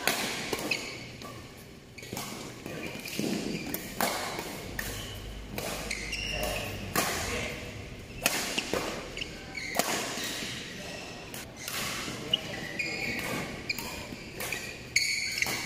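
Badminton rally: rackets striking a shuttlecock in sharp cracks every second or so, with players' shoes squeaking briefly on the synthetic court mat and footfalls thudding between shots.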